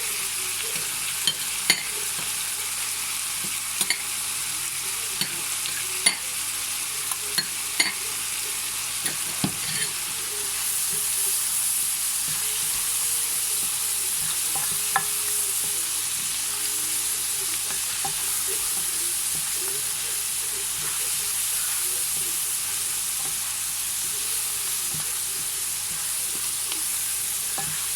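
Gizzard and vegetables frying in a pan with a steady sizzle, while being stirred, the utensil knocking sharply against the pan several times in the first ten seconds or so. The sizzle grows a little louder after that.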